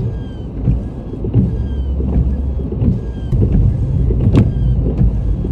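Strong wind buffeting the microphone, a heavy uneven rumble, with one sharp click about four seconds in.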